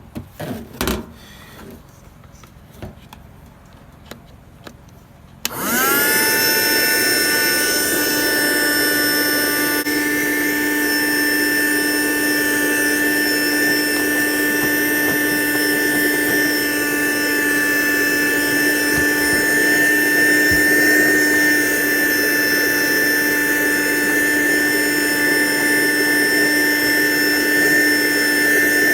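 A few handling knocks, then a vehicle-powered vacuum cleaner switches on about five seconds in, spins up with a brief rising whine and runs steadily with a high whine, sucking dry leaves and debris out of the van's blower housing through a thin pipe taped to its hose.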